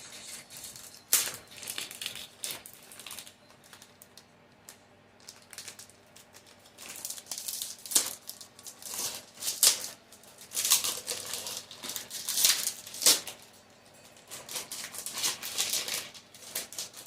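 A card binder being unwrapped and handled: irregular crinkling, rustling and clicking of its plastic packaging, busiest in the second half.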